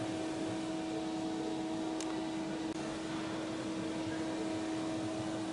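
Steady hangar room tone: an even hiss with a constant mid-pitched hum, and one faint tick about two seconds in.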